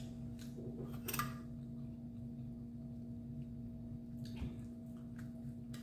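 Quiet room with a steady low hum, broken by a few faint clicks from eating at the table; the clearest comes about a second in, another around four seconds in.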